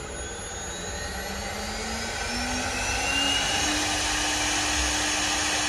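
CNC wood lathe running and cutting a spinning wooden blank: a steady whirring drone of motors and cutting that grows gradually louder, with a faint whine rising slowly in pitch.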